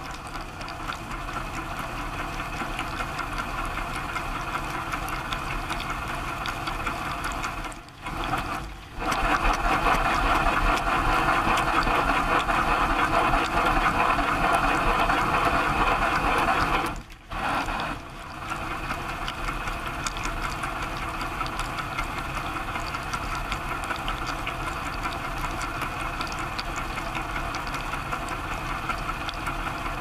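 Dishwasher mid-wash, heard from inside the tub: water jets spraying and splashing over the dishes and the steel walls as the machine runs. It is louder in the middle stretch, as the spray washes over the camera, and the sound drops out briefly about eight and seventeen seconds in.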